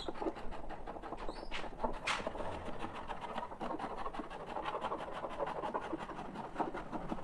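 Sandpaper rubbed by hand over a bare wooden door panel: a continuous run of quick, dry scratching strokes, with a couple of sharper scrapes about two seconds in. The bare wood is being sanded before it is painted.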